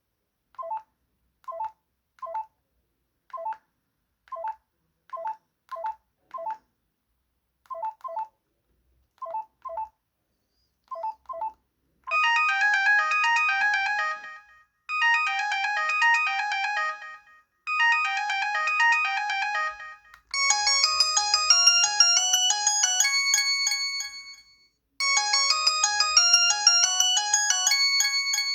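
LG A180 mobile phone playing ringtones through its small loudspeaker. First comes a pattern of short two-note electronic beeps, irregularly spaced. About twelve seconds in, a synthesized melody starts in short repeated phrases, and about twenty seconds in it gives way to a busier, fuller synth tune.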